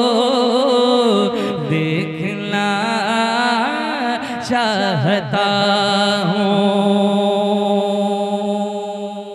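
A man singing a naat (Urdu devotional praise poem) into a microphone, a drawn-out ornamented phrase with wavering pitch and no words clearly formed, ending on a long held note from about six seconds in that fades away at the end.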